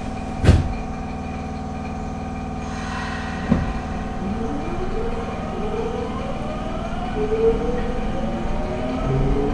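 Nagoya Municipal Subway 5050 series train's Hitachi GTO-VVVF inverter and traction motors whining in several parallel rising tones as the train starts off and gathers speed, from about four seconds in. Before that there is a sharp thump about half a second in, a brief hiss, and a second thump.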